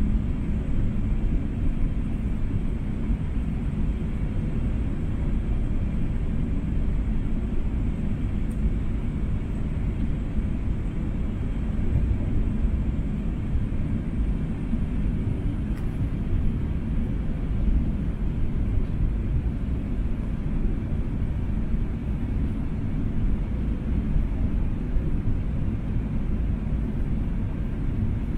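Steady low rumble inside the passenger cabin of an Airbus A380 airliner: engine and airflow noise, even throughout with no separate knocks or changes.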